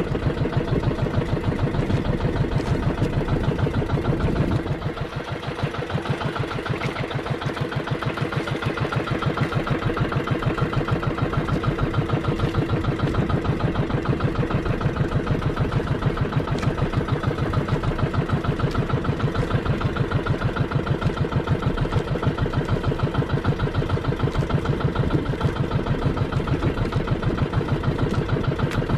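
A bangka fishing boat's engine running steadily with a fast, even pulse. About four and a half seconds in it eases off for a moment, then runs on at a steady speed.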